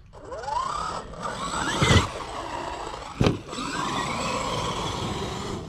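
Traxxas XRT RC truck's 12S, 800 kV brushless motor and steel drivetrain whining as it accelerates, the pitch rising twice. A thump about two seconds in and a sharp knock about a second later.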